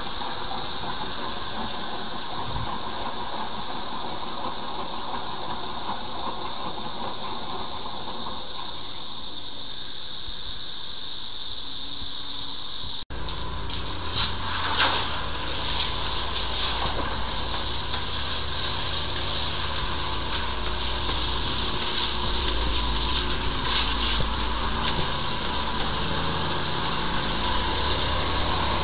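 High-pressure drain jetter running: a steady high hiss of the water jet for about 13 seconds. After an abrupt break, the hiss goes on over a low steady hum of the jetter's engine and pump, with a few sharp knocks just after the break.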